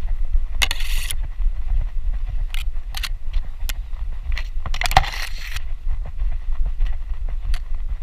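Tall grass swishing against a dog's harness-mounted action camera as the dog trots through it, two longer swishes standing out, with scattered light clicks. A steady low wind rumble on the microphone runs underneath.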